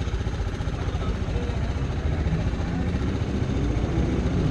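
Motorcycle engine running steadily with a fast, even pulsing, growing a little louder near the end.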